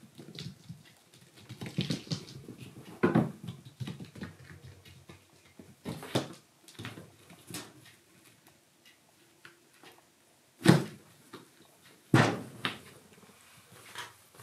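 Kittens playing and pouncing: soft thumps and scuffling of paws on a floor mat and on cloth. The loudest thump comes about ten seconds in and another about a second and a half later.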